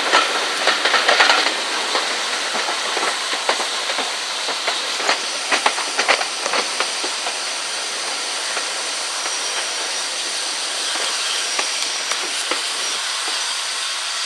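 Steam-hauled passenger train running, heard from an open carriage window: a steady rush of air and running noise with the wheels clicking over rail joints, the clicks dying away about halfway through.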